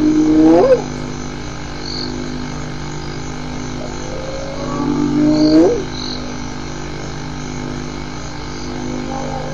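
Spotted hyena whooping: two long calls, each sliding up in pitch and ending abruptly, one at the start and one about five seconds in, over a steady low hum.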